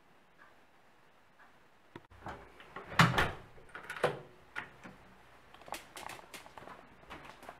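A wall clock ticking faintly about once a second, then door sounds: a sharp click about two seconds in and a loud bang about a second later, followed by scattered knocks and clicks.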